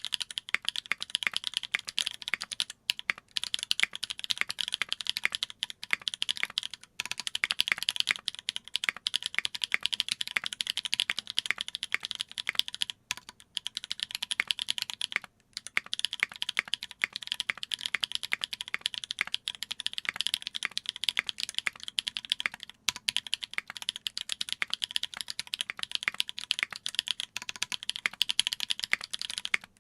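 Fast continuous typing on a mechanical keyboard: a Duck Jetfire with lubed Holy Panda tactile switches on an aluminium plate, GMK keycaps and lubed JWK stabilisers. The keystrokes run in a dense stream, broken by a few brief pauses.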